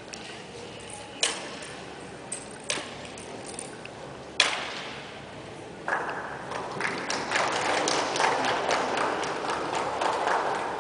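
A few sharp knocks, the loudest about four seconds in, then applause starting suddenly about six seconds in and growing fuller.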